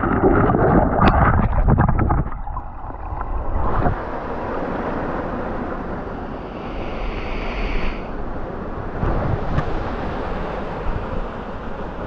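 Knocks and rubbing of an action camera handled against rock for about the first two seconds, then a steady rush of flowing stream water with wind buffeting the microphone.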